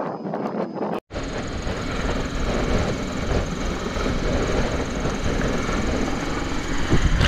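A large military helicopter hovering low overhead, its rotors and turbine engines making a dense, steady noise, with the rotor downwash buffeting the microphone. The first second, before a sudden cut, is wind noise over open water.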